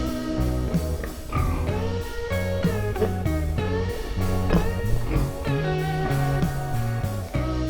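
Background music: an instrumental with guitar over a bass line that steps between held notes.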